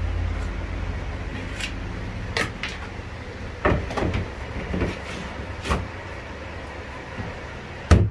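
Knocks and clicks of hands working on a plastic water tank as its black screw cap is fitted back on the filler opening, a handful of separate knocks spread through, with the loudest sharp knock near the end.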